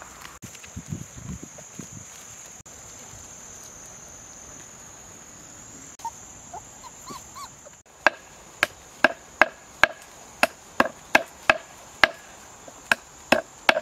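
A high, steady insect drone for the first half. Then, from about eight seconds in, a quick run of sharp chopping strikes, roughly two a second, each with a slight ring.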